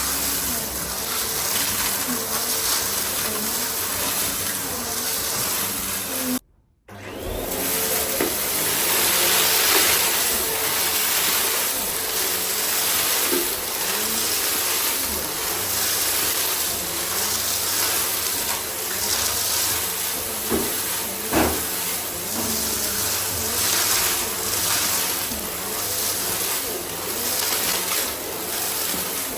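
Goodmans TurboMax vacuum cleaner running with a steady rushing suction noise whose pitch wavers a little. The sound cuts out briefly about six and a half seconds in, then comes back up over a second, and there is a single knock about two-thirds of the way through.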